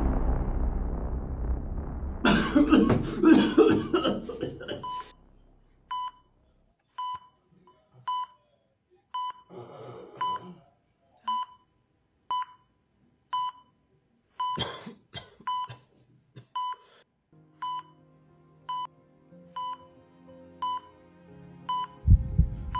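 A short, high electronic beep repeating about once a second, with a couple of short noisy bursts in between. Loud noise fills the first few seconds, and low music comes in near the end.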